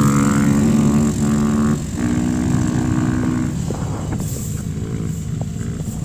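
A vehicle engine running at a steady speed with an even hum. It breaks off briefly about two seconds in, fades halfway through and returns fainter near the end, over rough low rumble.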